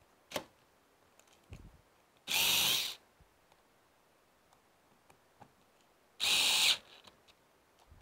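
Vessel cordless high-speed screwdriver's small motor whirring in two short bursts about four seconds apart as it drives a deadbolt screw, with a brief click just before the first.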